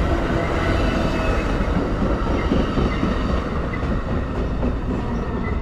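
Cars of an Amtrak passenger train rolling past at close range, a steady rumble of steel wheels on the rails.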